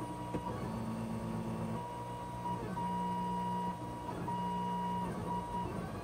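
Monoprice Maker Ultimate 3D printer's stepper motors whining as it prints a slow first layer. The whine jumps between pitches and stops and starts every second or so as the print head changes moves.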